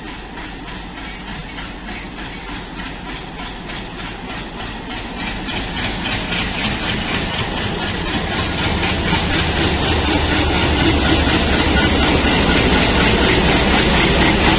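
A diesel locomotive and its train running past, the engine's throb and the rolling stock growing steadily louder over the whole stretch as the train nears.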